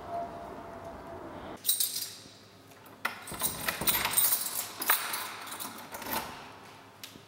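Keys jangling and clinking against a door's lock and handle. There is a run of sharp metallic clinks beginning about a second and a half in, densest in the middle. Before that there is a steady background hum.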